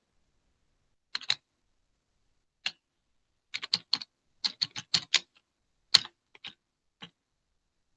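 Light, sharp clicks in small irregular clusters, like keystrokes being typed, with the sharpest click about six seconds in.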